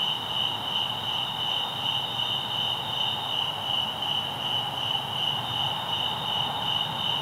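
Night insects chirping in a steady, pulsing chorus, about two pulses a second, over a low background hiss.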